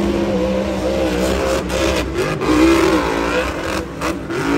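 Monster truck's supercharged V8 engine revving up and down again and again as the truck climbs and jumps a dirt mound.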